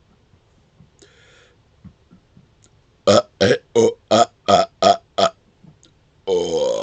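A man burping up air he has swallowed: seven short burps in quick succession, about three a second, then one longer burp near the end.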